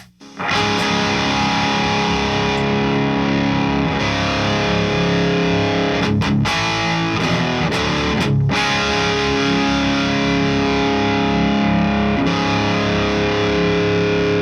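Distorted electric guitar played through a Friedman Runt 50 tube amp with its built-in boost switched off: held, ringing chords, with brief breaks about six and eight and a half seconds in.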